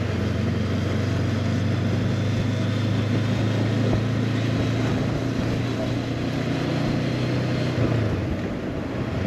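Honda CB500X's parallel-twin engine running steadily while riding, under a wash of wind and road noise; the engine note drops about eight seconds in.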